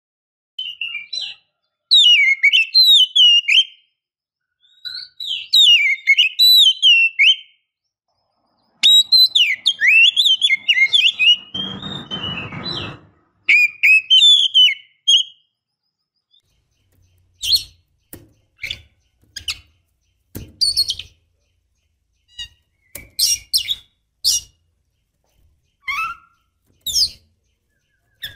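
Female oriental magpie-robin (kacer) singing: rich phrases of varied gliding whistles in three long bursts, then short sharp call notes spaced a second or so apart. It is a female in breeding condition calling to males. A brief low rustling noise sounds under the song about twelve seconds in.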